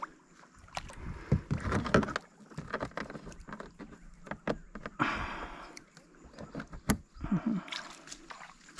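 Water sloshing around a kayak, with irregular knocks and clunks against the hull.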